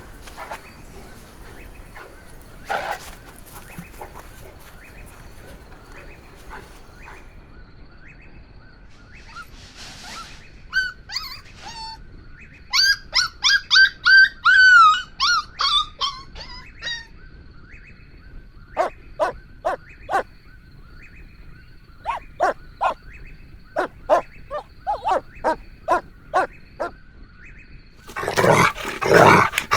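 Golden retriever puppies whining in high-pitched cries that rise and fall, then a run of short yaps. Near the end comes a louder rough burst of noise.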